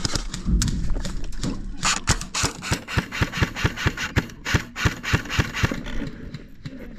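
Airsoft electric rifle, a CYMA M16A3 AEG, firing a rapid string of semi-automatic shots, about four to five a second, for roughly four seconds, each shot a sharp mechanical clack from the gearbox.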